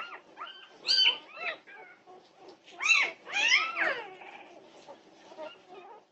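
Newborn Norwegian Buhund puppies squealing and crying: a run of short, high-pitched cries that rise and fall in pitch, several overlapping, loudest about a second in and again about three seconds in.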